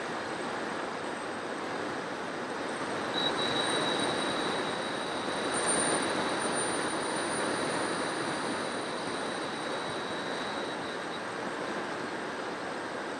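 Airflow rushing past an FPV model aircraft's onboard camera in flight, with a thin high whine from its motor and propeller over the steady noise, swelling a little about four to six seconds in.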